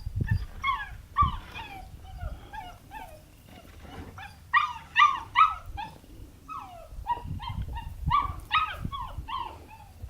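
A border collie puppy yipping and whining in quick runs of short, high, downward-sliding yelps, the loudest three about halfway through. Some dull low thumps come in between.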